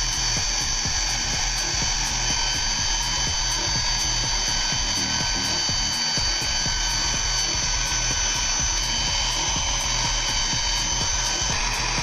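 Small DC motor and fan of a homemade cordless vacuum cleaner running with a steady high whine over a rushing hiss of air, sucking sawdust and grit up through a plastic tube into a bottle.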